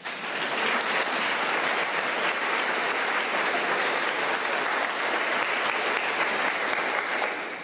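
Audience applauding, breaking out suddenly and fading out near the end.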